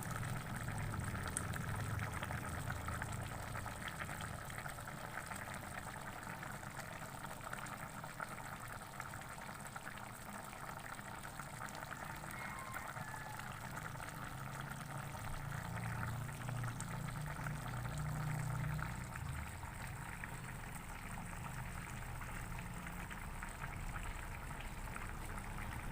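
Chicken curry bubbling steadily in the pot, simmering as its broth reduces.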